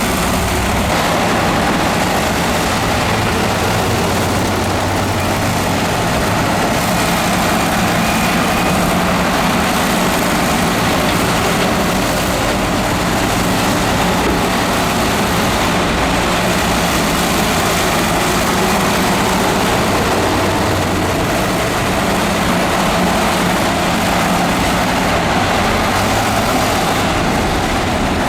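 Diesel engine of heavy earthmoving equipment running steadily, with a dense mechanical noise over its low engine tones.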